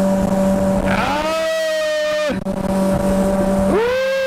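Motorboat engine running steadily with a constant hum. Twice over it comes a drawn-out pitched tone, about a second and a half long, that rises, holds level and falls away.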